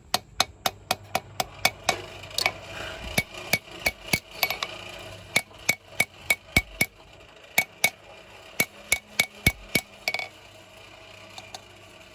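Hand hammer striking a hot knife blade on an anvil, about four ringing blows a second in runs with short breaks, as the blade is straightened and shaped; the blows stop about ten seconds in.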